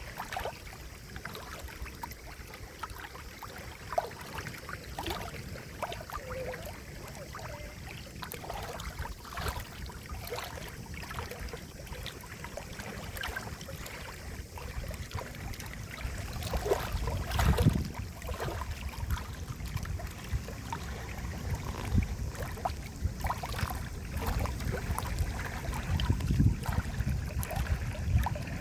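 Running water, trickling and gurgling, with many small splashes and drips. A low rumble builds up in the second half, with a stronger surge near the middle.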